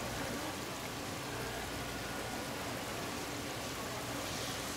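Steady rush of seawater pouring into live seafood tanks, over a constant low hum.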